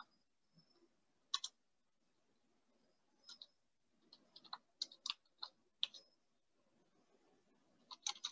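Faint, irregular keystrokes on a computer keyboard, coming in small clusters of a few clicks with short pauses between them, as code is typed.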